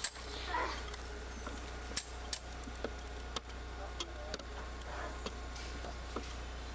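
Faint, distant voices and scattered sharp light clicks, unevenly spaced, over a steady low hum.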